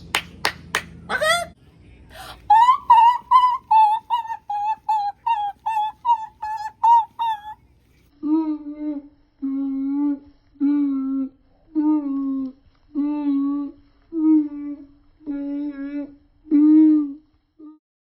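A person's voice making wordless sound effects: a quick run of clicky syllables, then a fast string of short, high, pitched notes. After that come eight longer, lower hummed or sung notes, about one a second.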